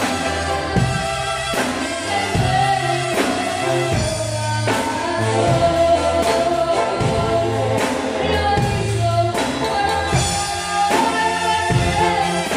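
Live amplified gospel band: a boy singing lead into a handheld microphone over electronic keyboards, bass and a drum kit keeping a steady beat.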